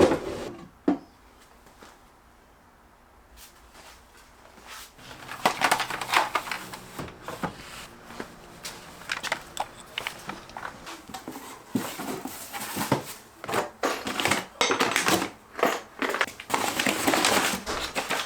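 Rustling, crinkling and knocking of objects being handled, starting about five seconds in after a quiet stretch and going on as an irregular string of short clicks and knocks.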